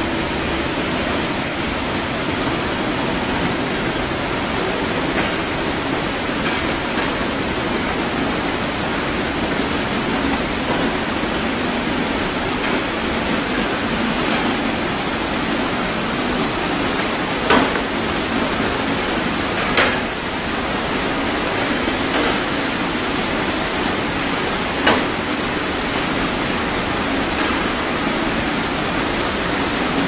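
Combined raw wool washing machine (model TDB006-100) running: a steady rush of moving water and machinery, with a few sharp knocks in the second half.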